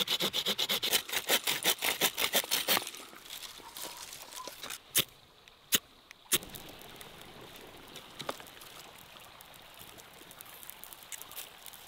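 Quick rhythmic scraping, about eight strokes a second, for the first three seconds while a campfire is being built from dry twigs, then three sharp cracks. After that the small twig fire crackles faintly over a gently running stream.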